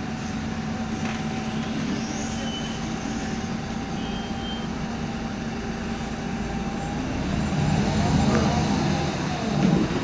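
Inside the cabin of a 2010 MAN Lion's Classic city bus under way: its MAN E2876 CNG engine and drivetrain run with a steady whine from the noisy differential. In the last few seconds it grows louder, with the whine rising and falling in pitch, and a brief knock comes just before the end.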